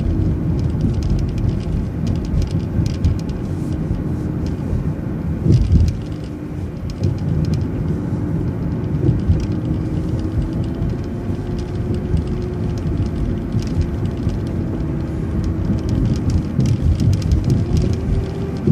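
Transit bus driving along, heard from inside: steady low engine and road rumble with a faint engine whine that rises a little in pitch past the middle, and one thump about six seconds in.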